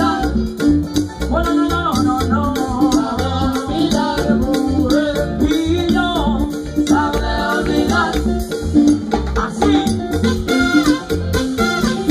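Salsa orchestra playing live: trumpets and saxophones over bass and a fast, steady percussion beat.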